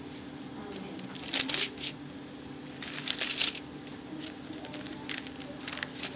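Two short bursts of crinkling, rustling handling noise about a second and three seconds in, with fainter rustles later, over a steady low hum.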